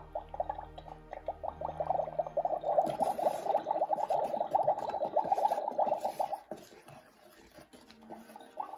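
Magic Mixies Magic Cauldron toy playing its electronic bubbling sound effect through its speaker as the wand stirs, growing louder about three seconds in and stopping about six and a half seconds in. Faint steady tones of the toy's music fade out underneath during the first couple of seconds.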